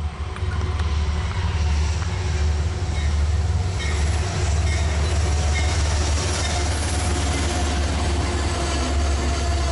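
Amtrak P32AC-DM dual-mode diesel locomotive passing close by with its Amfleet passenger cars: engine rumble as it draws level, then the cars rolling past on the rails with rising wheel noise. A steady tone joins about six seconds in.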